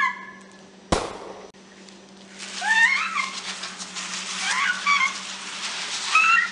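A single sharp thump about a second in, then a scraping noise as a body is dragged across a concrete floor. Short squeals rise and fall every second or two over the scraping.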